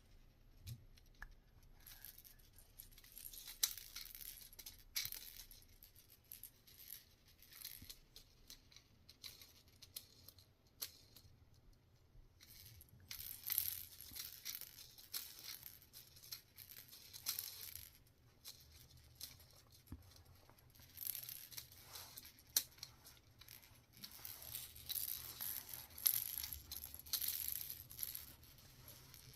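Faint handling of small plastic toys: scattered clicks, light rattles and rustling, in stretches of a few seconds.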